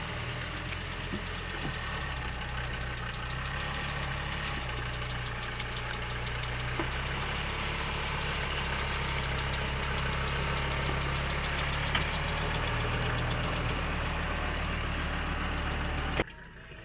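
Mercedes-Benz 250 GD Wolf's five-cylinder diesel engine running steadily at low revs as the vehicle crawls over metal ramps, with a few short knocks. The sound cuts off suddenly near the end.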